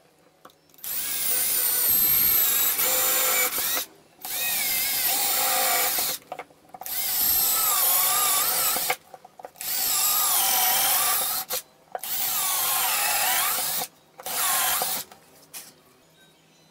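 Cordless drill running in six separate bursts, most about two seconds long and the last one short, as it drills and drives screws into plywood. The motor's pitch rises and falls with the load.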